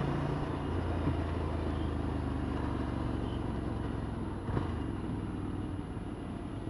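Motorcycle engine running steadily at cruising speed, a constant low hum under road and wind noise.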